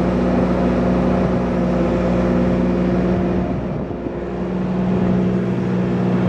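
Caterpillar 302.5C mini excavator's diesel engine running steadily as the machine swings its upper structure round; the engine note dips briefly about halfway through.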